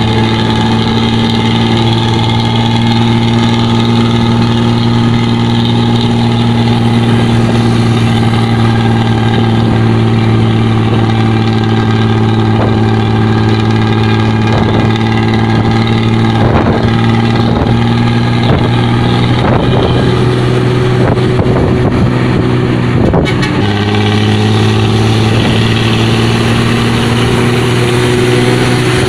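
Bus diesel engine running through a 'ngorok' (snoring) exhaust: a loud, steady, deep idling note. It wavers briefly about two-thirds of the way through, then settles again.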